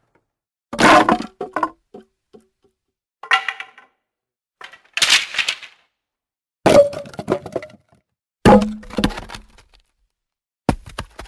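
Wood and branches snapping and cracking in six separate short bursts, each dying away quickly, with dead silence between them.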